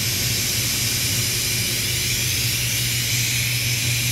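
Steady shop machinery drone: a constant low hum under an even, airy hiss, unchanging throughout.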